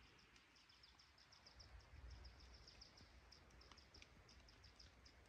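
Faint, rapid high-pitched chirping from a small bird, short notes repeated about seven times a second with brief pauses, over a faint low rumble.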